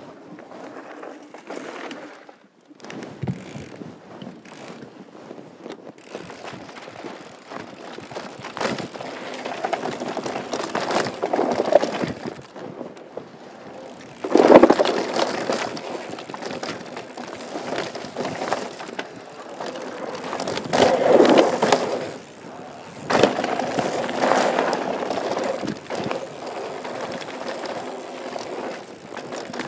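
Mountain bike descending a rough downhill trail: tyres rumbling over dirt and rocks, with the chain and frame rattling and clattering. Several harder jolts stand out, the loudest about halfway through.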